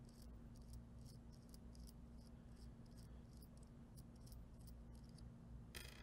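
Near silence over a low steady hum, with faint scattered ticks of a small metal ring nut being unscrewed by hand from a toggle switch's threaded bushing.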